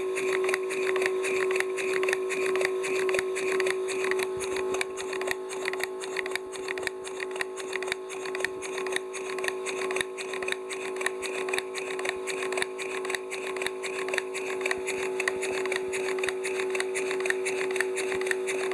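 Two-cylinder V-type steam engine of a 5-inch gauge Heisler model, running in reverse on compressed air at about 8 psi: a quick, even run of clicking exhaust puffs and rattling valve-gear linkage. Under it is a steady hum from the small spray compressor supplying the air.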